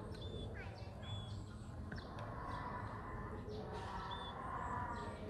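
Birds chirping in short, repeated high calls over faint murmuring voices and a steady low hum.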